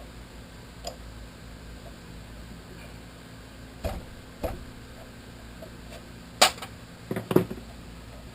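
Several sharp metallic clicks and knocks of tools and parts being handled and set down, the loudest about six and a half seconds in, with a quick cluster just after. Over a steady low hum.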